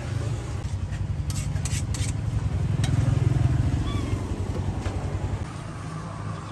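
An engine running with a low pulsing rumble, swelling louder about halfway through and then easing off, with a few light clicks early in the sound.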